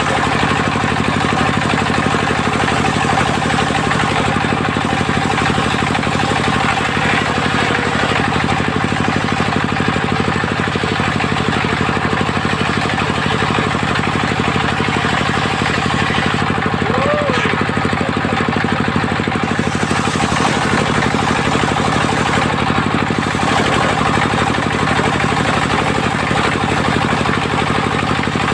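Engine of a mobile circular sawmill running at a steady speed.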